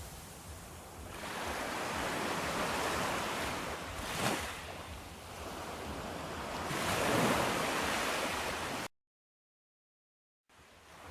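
Ocean waves washing in, the surf noise swelling and falling away several times. Near the end it cuts off to complete silence for about a second and a half, then resumes.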